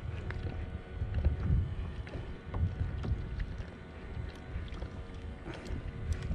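Wind rumbling on the microphone and water lapping against a plastic kayak, swelling unevenly, with a few scattered light clicks.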